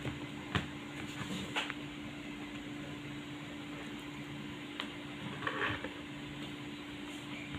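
Quiet room with a steady low hum and a few soft clicks and taps.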